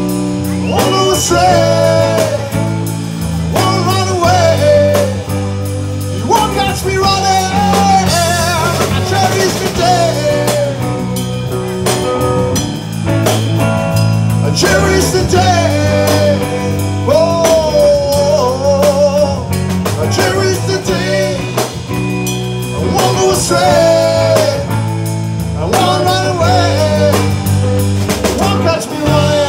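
Live rock band playing: a vocalist sings a wavering melody over electric guitar, bass and a drum kit.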